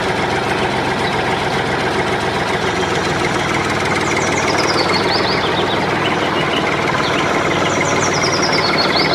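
A machine running steadily with a fast, even rattle, with short high falling chirps twice.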